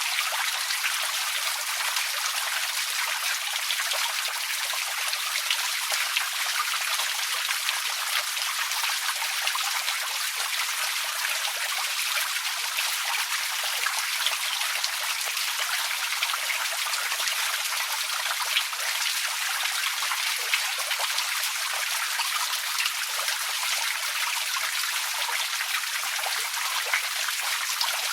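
Outdoor water fountain splashing steadily: a continuous, even rush of falling water with no breaks or changes.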